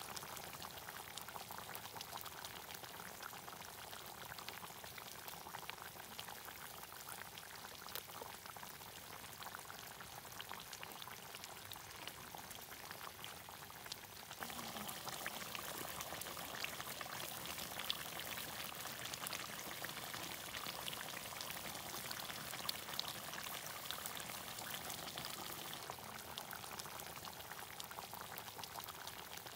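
Green chicken curry gravy simmering in an iron karahi over a wood fire: steady bubbling with many small pops, a little louder from about halfway.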